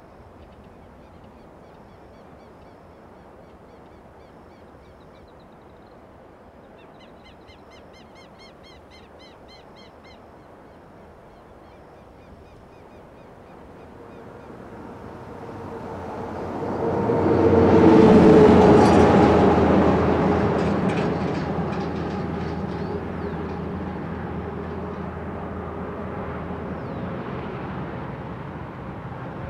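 Open-country ambience with small birds chirping, then a vehicle approaches along the road, passes loudest about 18 seconds in, and fades slowly away.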